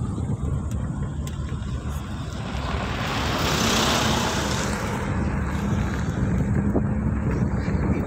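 Steady low engine and road rumble of a moving road vehicle, heard from on board, with some wind noise. A rushing swell of noise rises and falls between about three and five seconds in, and a faint steady low hum comes in at about the same time.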